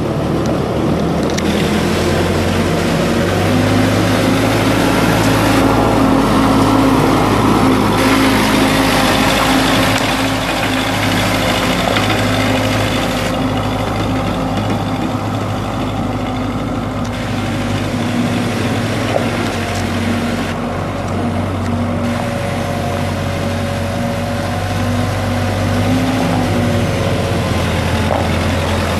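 1984 Case 480LL tractor-loader's four-cylinder diesel engine running steadily as the machine drives about.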